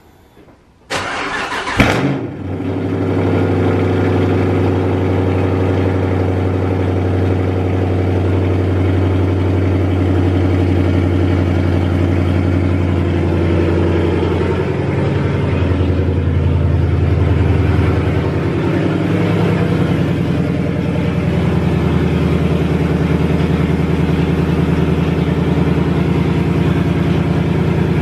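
Car engine cranked by the starter, catching with a brief rev about two seconds in, then idling steadily.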